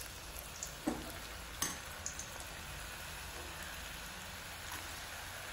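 Okra and peanut batter fritters sizzling in hot coconut oil in an iron kadai. A steady frying hiss, with a few sharper crackles in the first couple of seconds.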